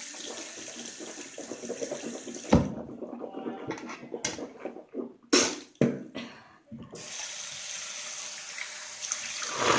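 Bathroom sink tap running. It breaks off about two and a half seconds in, a few sharp knocks follow, and the water runs again from about seven seconds.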